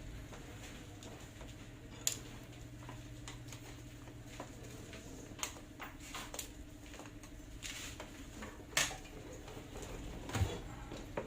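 Scattered light clicks and taps of hand tools and metal parts as a mini melting furnace's casing is opened up, over a steady low hum.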